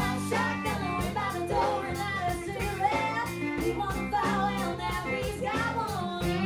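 Live country band: a woman singing into a microphone over electric guitar, fiddle, bass and drums with a steady beat, played through a bar's PA.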